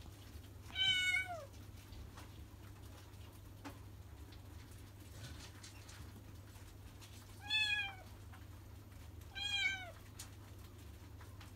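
Kitten meowing three times at a closed door, calling for the person on the other side. The first meow comes about a second in and two more come close together near the end, each dropping in pitch as it ends. A faint steady low hum runs underneath.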